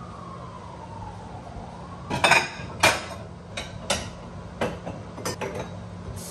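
Ceramic bowls clinking and knocking as they are stacked and set onto a kitchen cabinet shelf: a run of sharp clinks beginning about two seconds in, the loudest two close together at the start.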